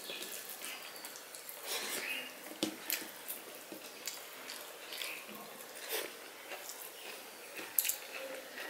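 Fingers mixing rice and vegetable curry on a steel plate, with soft wet squishes and scattered clicks, along with mouth chewing sounds. A sharper click comes near the end.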